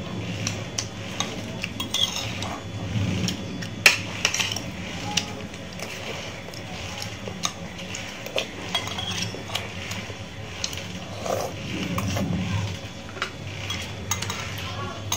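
A metal spoon clinking and scraping against ceramic soup bowls and plates while eating, with scattered sharp clicks, the loudest about four seconds in.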